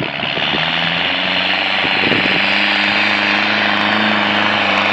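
Old farm tractor's diesel engine running hard under load with a fast, even knocking beat; its pitch rises about two seconds in as it accelerates.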